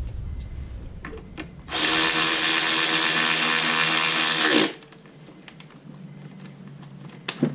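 Cordless power drill driving in an ignition-coil hold-down bolt: a steady whine for about three seconds whose pitch drops as it spins down. A short click follows near the end.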